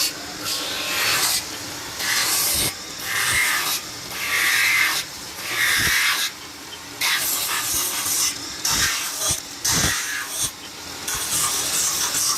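Repeated rasping strokes on a metal kettle body, roughly one a second, with a few sharp knocks in between.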